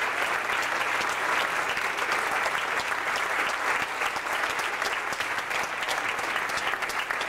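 A theatre audience applauding: dense, steady clapping from many hands.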